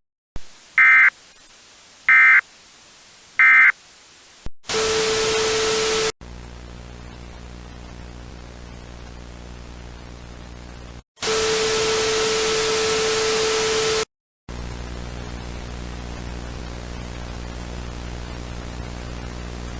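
Emergency Alert System end-of-message: three short data-tone bursts about a second and a half apart. Then loud static with a steady tone cuts in twice, for a second or two and then about three seconds, with quieter static and hum between. After a brief dropout it settles into steady static and hum.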